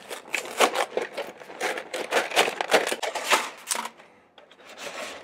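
Cardboard pasta box being opened and a plastic tray of dry manicotti shells pulled out and set on a wooden cutting board: a run of quick crackles and clicks that dies away about four seconds in.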